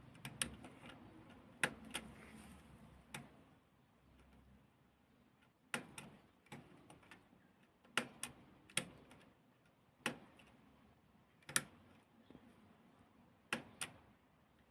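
Sharp metal clicks from the tab-setting mechanism of a 1978 Consul 235 portable typewriter as it is worked by hand: about a dozen clicks, unevenly spaced, some in quick pairs, as the tab stops are set and released on the freshly adjusted tab rack.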